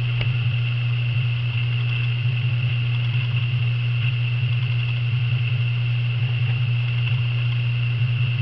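A steady low hum with a fainter, steady high whine above it, unchanging throughout.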